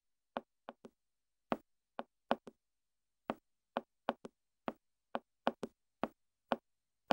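Foley footsteps of a dance demonstration: about twenty short, sharp taps on a hard floor in an uneven, stepping rhythm.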